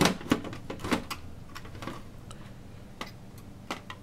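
Irregular light clicks and knocks of a computer case's slide-out metal motherboard tray and its parts being handled and shifted, the loudest in the first second, over a faint steady low hum.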